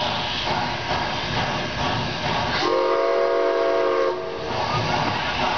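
Narrow-gauge steam locomotive's whistle blowing one blast of about a second and a half, a chord of several steady tones, over a steady rushing noise from the engine.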